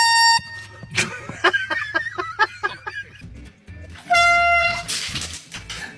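Two blasts from a handheld air horn: a short one at the start and a longer, lower-pitched one about four seconds in. In between, a person's voice cries out.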